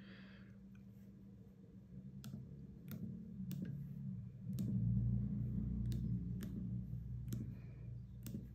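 Keys of a SwissMicros DM42 calculator clicking as a word is typed on it: about nine separate presses at an uneven pace, starting about two seconds in, over a low hum that swells in the middle.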